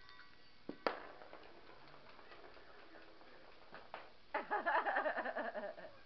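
Jingle ball knocked and rolling across a wooden floor: a couple of sharp knocks about a second in, then a rapid jingling rattle for about a second and a half near the end.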